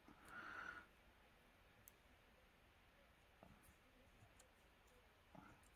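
Near silence with a few faint, scattered clicks of metal stamp tweezers picking up and setting down stamps on a mat. A short soft hiss comes in the first second.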